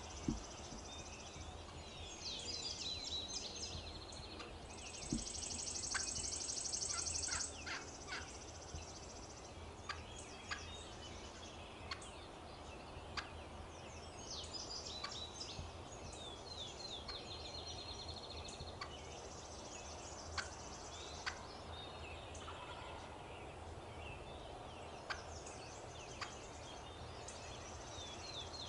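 Young wild hen turkey clucking: short, sharp single clucks a second or more apart, with a few quick runs of notes, over high, buzzy trills in the background.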